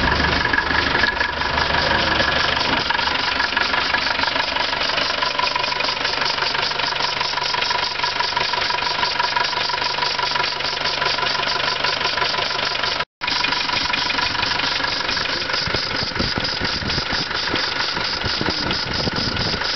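Land Rover 200Tdi 2.5-litre four-cylinder turbodiesel idling with an even diesel clatter, its cooling fan and belt-driven alternator turning. The alternator, with its regulator just replaced, is now charging. The sound cuts out for a split second about 13 seconds in.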